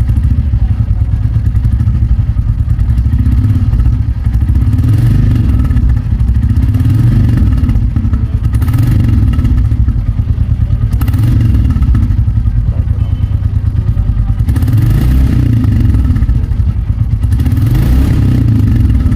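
Royal Enfield 350's single-cylinder engine running with its exhaust thumping steadily, the throttle blipped about six times, each rev rising and falling back to idle.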